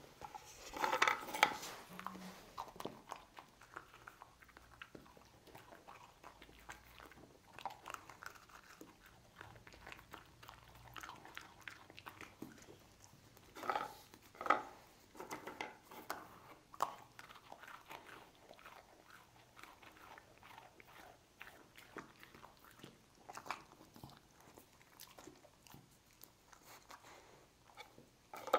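A dog biting and chewing small round cookies: crisp crunches and smacking chews come in clusters, loudest about a second in and again about halfway through, with quieter chewing clicks between.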